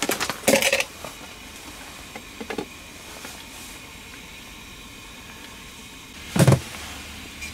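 A utensil clinking and scraping against a frying pan on a two-burner camp stove, several sharp clicks in the first second and a couple more a little later, over the faint steady hiss of the gas burners. A single heavier clunk comes near the end.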